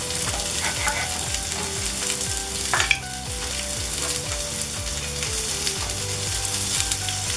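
Sausage meatballs sizzling steadily in oil in a cast iron skillet over charcoal, with one sharp knock about three seconds in.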